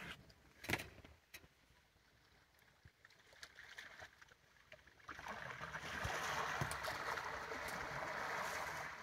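Hippo wading through a shallow channel, sending up a steady rush of splashing water from about five seconds in, after a quiet start.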